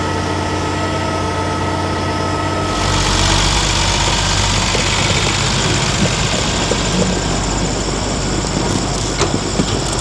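Tractor-driven vertical tub mixer wagon running, with hay spinning in the tub and a steady engine and drive hum. About three seconds in, the sound switches abruptly to the louder, rougher rumble of the Massey Ferguson tractor pulling the loaded Penta mixer wagon.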